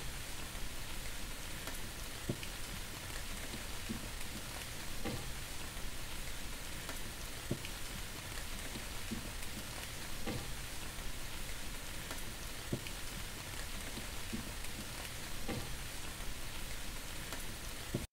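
Steady rain hiss with scattered soft drips and taps, from a recorded rain ambience; it cuts off suddenly at the end.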